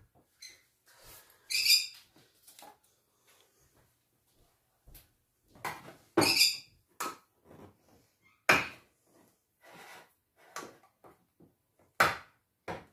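A big pet parrot squawking twice, with scattered light clicks and knocks between the calls.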